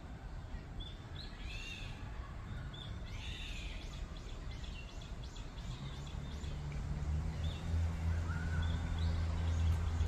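Wild songbirds chirping and calling, with short high chirps and a quick run of repeated notes in the first half and a lower call near the end. Under them, a low rumble grows louder in the second half.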